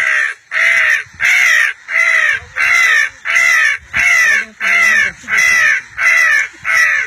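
A person mimicking a crow's caw, calling loudly in a steady series of about a dozen harsh caws, roughly one every half second, each falling slightly in pitch. The mimicked caws are used to call crows in.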